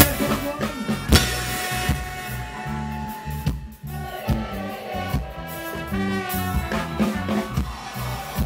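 Ska band playing live, with drums, electric guitar and a horn section of trumpet, saxophone and trombone. The band cuts out briefly a little under four seconds in, then comes back in with the horns.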